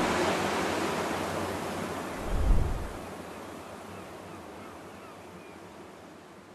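Sea surf washing against a rocky shore, a steady rush that fades out gradually. A low thump comes about two and a half seconds in.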